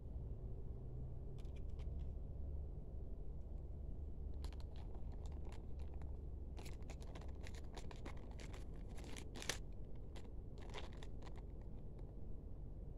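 Scissors snipping into a plastic courier mailer bag, with the plastic crinkling: scattered clusters of short, crisp snips and rustles, the loudest a little past the middle, over a steady low hum.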